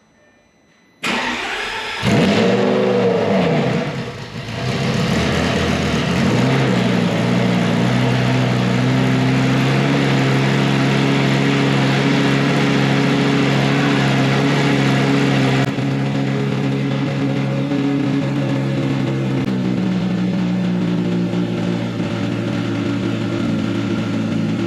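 Lamborghini Gallardo Superleggera's V10 engine cranked on the starter about a second in and catching with a rev flare, then settling into a steady fast idle. It is the first start in nearly two years, run briefly on a first oil fill to prime the dry-sump system.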